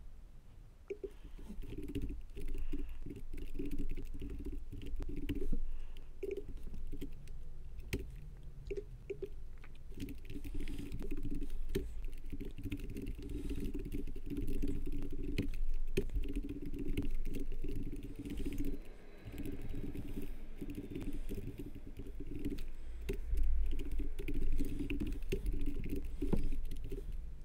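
Typing on a computer keyboard: runs of quick key clicks broken by short pauses, over a low steady hum.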